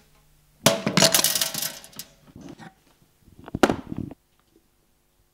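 Sheet-metal computer tower case being jostled and opened roughly: a long rattling clatter with some metallic ringing about a second in, a few small knocks, then a sharp clank just before four seconds in.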